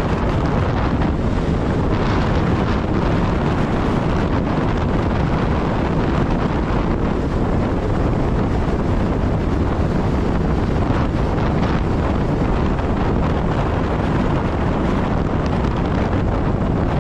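Steady, loud wind buffeting the microphone of a moving motorcycle, with vehicle noise mixed in underneath.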